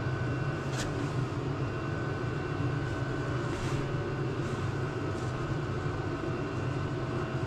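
Steady mechanical hum from a running machine in the shop, with a few faint metal clicks about a second in and again around the middle.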